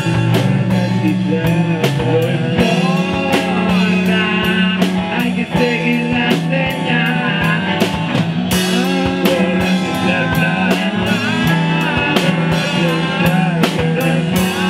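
A rock band playing an instrumental passage: drum kit keeping a steady beat under electric guitar and bass guitar, with bending, wavering guitar lines above.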